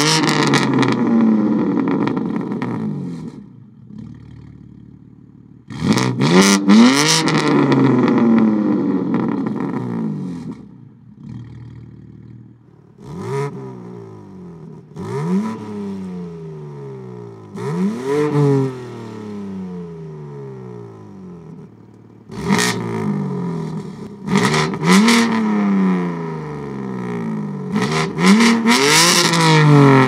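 BMW G80 M3 Competition's twin-turbo 3.0-litre straight-six being free-revved at a standstill, each rev rising in pitch then falling back toward idle, with sharp cracks from the exhaust around several of the revs. The louder revs come through Fabspeed sport cat downpipes and an intermediate X-pipe; a middle run of four shorter, quieter blips is the stock exhaust in comfort mode.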